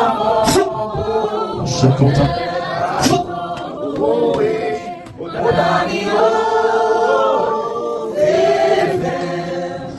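Group of voices singing or chanting together, with long held notes.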